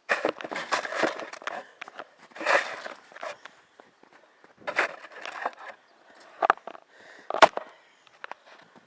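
Metal snow shovel scraping and digging through snow in several separate strokes, with a sharp clank near the end.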